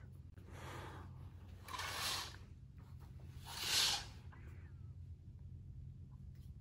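Three short breathy puffs of air, each louder than the last and the third the loudest, over a low steady hum.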